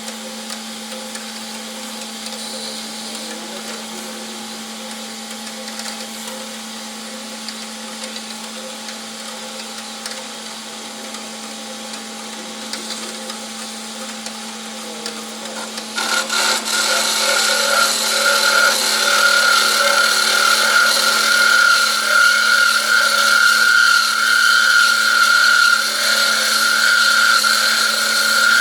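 PEGAS 290 A-CNC-F automatic metal-cutting band saw running with a steady machine hum. About halfway through it gets suddenly louder and takes on a high steady whine.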